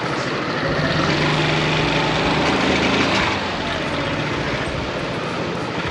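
Motorbike engine running while ridden, with wind rushing over the microphone; a steady engine hum stands out between about one and three seconds in.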